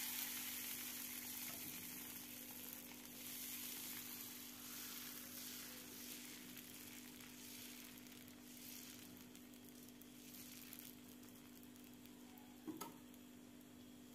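Dosa batter sizzling on a hot tawa as it is poured and spread in circles with a ladle. The sizzle is loudest at first and fades off, swelling a little with each sweep, and there is one short knock near the end.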